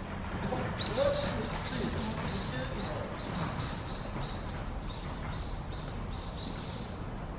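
A small bird chirping over and over, about three short, high chirps a second, over a steady low background rumble.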